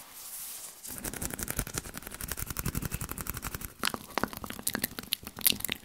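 Close-miked ASMR hand and mouth sounds. A fast run of soft pulses from the hands lasts about three seconds, then sharp mouth clicks and pops come scattered near the end.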